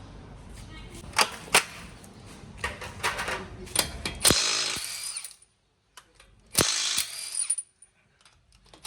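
Tire-shop air tools at work: sharp metallic clicks and clanks, then three loud bursts of pneumatic tool noise, each about a second long.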